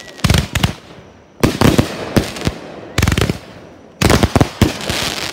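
Aerial fireworks firing: a series of sharp bangs, scattered at first, then a rapid cluster of bangs about four seconds in.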